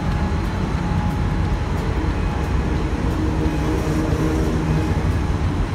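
Diesel locomotive of the State Railway of Thailand running as it approaches slowly with its train, a steady low engine rumble. A droning engine note joins in about two seconds in.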